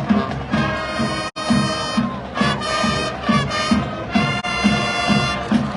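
High school marching band playing: the brass section holds loud sustained chords over a steady drum beat of about two beats a second. The sound cuts out for an instant about a second in.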